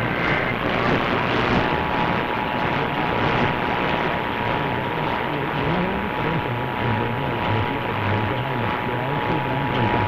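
Emergency Alert System test received on AM radio: the tail of a SAME header data burst, a warbling high two-tone chirp, ends within the first half second, then after about a second the EAS two-tone attention signal (853 and 960 Hz together) sounds steadily for about eight seconds. Both sit under heavy hiss and static from poor reception.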